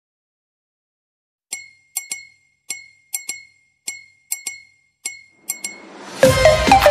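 Logo intro sound effect: a string of short, glassy, ringing clinks at an uneven rhythm, then a rising swell that leads into electronic dance music with a steady beat near the end.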